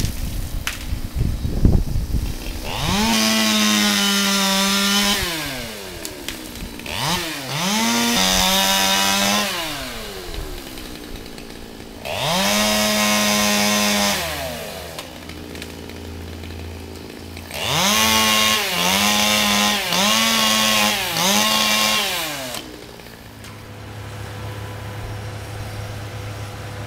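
Chainsaw revving up to full speed, holding for a second or two and dropping back to idle, several times over, with a quick run of four short revs near the end. It then settles to a low steady hum.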